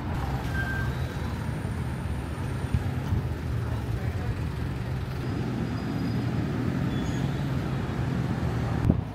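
Street ambience dominated by a steady low rumble of motor vehicle engines, with faint voices of people nearby. There is a short sharp knock near the end.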